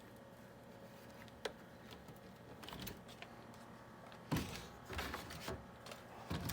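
Small plastic parts of an RC truck kit being handled: a single faint click about a second and a half in, then a run of clicks and knocks from about four seconds in.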